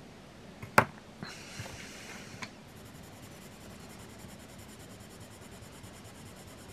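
Caran d'Ache Luminance coloured pencil rubbing back and forth on paper while blending a swatch, for about a second and a half, after a sharp click just under a second in.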